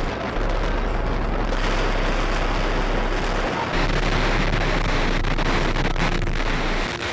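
A loud, steady rushing roar with a low hum underneath. It grows brighter about a second and a half in.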